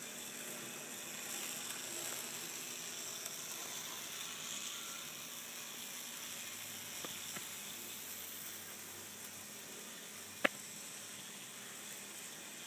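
Faint steady hiss of a Z scale model train running on its track, a GP9 diesel pulling coal hoppers, with one sharp click about ten and a half seconds in.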